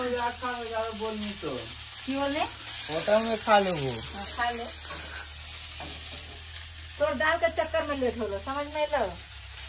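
Food sizzling as it fries in oil in a pan on a gas stove, with people's voices talking over it at intervals.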